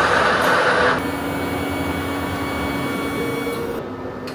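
Otter 40 DTF printer printing its printhead test pattern, its carriage and motors whirring steadily, with a louder rushing noise in about the first second.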